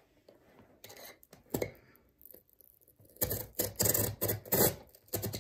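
Box cutter scraping and slicing through the tape and cardboard of a shipping box, with a knock on the box early and then a quick run of rough scraping strokes in the last two seconds, the loudest part.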